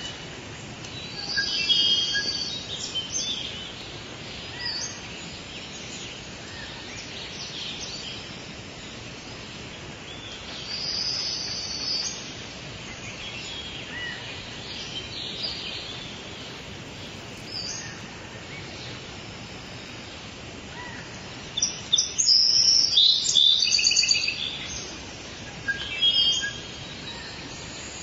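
Birds chirping and singing in repeated bursts over a steady outdoor hiss, with the busiest, loudest run of calls near the end.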